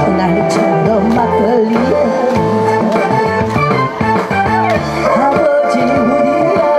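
A woman singing a Korean trot song into a microphone over amplified backing music with a steady beat.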